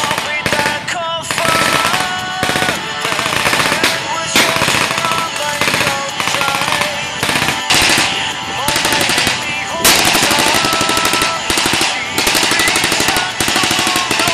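Rapid, sustained machine-gun fire in near-continuous bursts, with background music.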